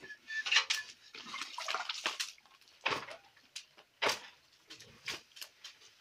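Small wood fire crackling, with a few sharper pops in the second half.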